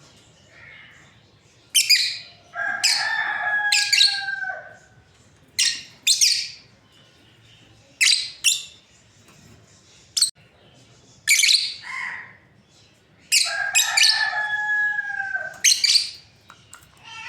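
Lovebirds chirping: sharp, high chirps in short clusters every second or two, with two longer, steadier held calls among them, one a few seconds in and one near the end.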